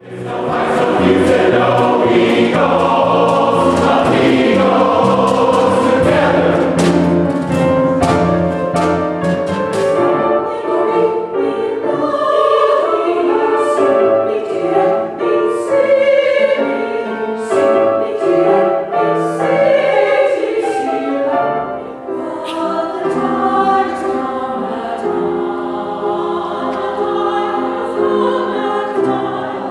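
Women's chorus singing.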